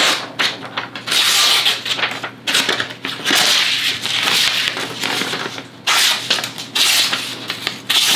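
A freshly sharpened knife slicing strips from a sheet of printer paper in several long hissing strokes, with the paper rustling between cuts: a paper-slicing test of the newly sharpened edge.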